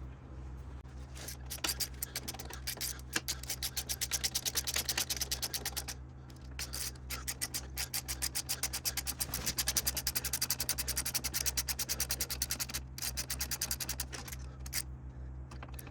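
Ratchet wrench clicking rapidly and evenly, about five clicks a second, as a nut or bolt on the motorcycle's rear brake linkage is turned. The clicking comes in long runs, with short breaks about six seconds in and again near the end, over a steady low hum.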